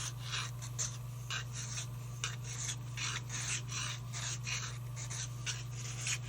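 Hand file rasping in repeated strokes, about two a second, over a pipe stem's ebonite button, filing off the hardened charcoal-and-super-glue fill of a repair. A steady low hum runs underneath.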